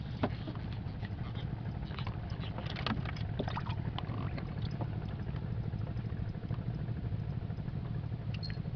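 Steady low rumble of a small boat engine running at idle, with scattered small clicks and knocks from fishing tackle being handled in a wooden boat during the first few seconds.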